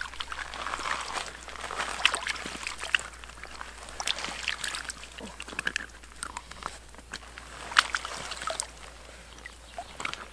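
Water sloshing and splashing close by, in short irregular bursts, with scattered sharp clicks and knocks of handling.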